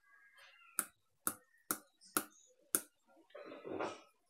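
Five sharp taps about half a second apart as a small plastic jar of baking soda is tapped to shake the powder into the palm, then a short rustle near the end as the soda goes into the flour.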